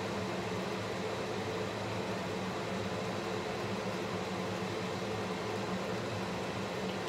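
Kitchen range hood exhaust fan running steadily: a low motor hum under a rush of air.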